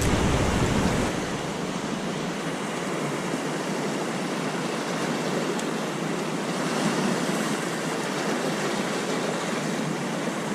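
Ocean surf washing against a rocky shoreline: a steady rushing hiss of waves.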